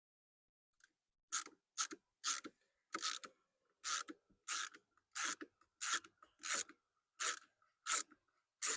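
Ratcheting screwdriver driving in a screw: about a dozen short ratchet clicks, one on each back-swing, spaced a little over half a second apart.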